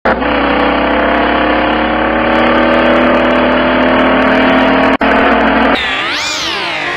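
Car engine pulling steadily, its pitch climbing slowly as it accelerates, with a brief dropout about five seconds in. Near the end the pitch swoops sharply up and falls back.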